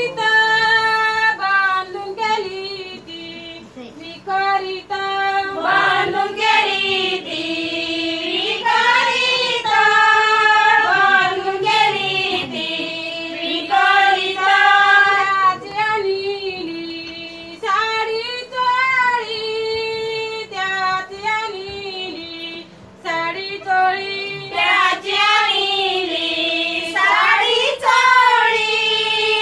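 Women's voices singing a Fugadi folk song, one high melody line in phrases of a few seconds broken by short pauses.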